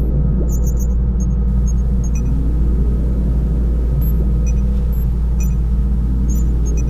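Sci-fi spaceship-interior sound effect: a loud, steady deep rumble with a faint hum, and scattered soft electronic blips.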